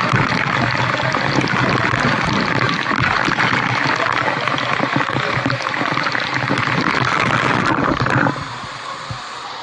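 Waterfall rushing: a steady wash of falling water that drops suddenly to a quieter level about eight seconds in.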